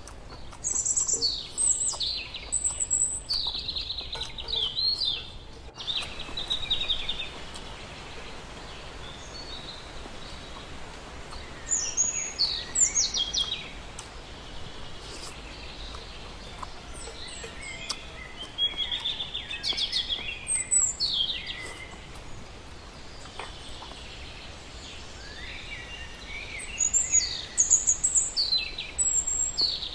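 Birds singing and chirping in several short bouts of quick, high sweeping notes, over steady low background noise.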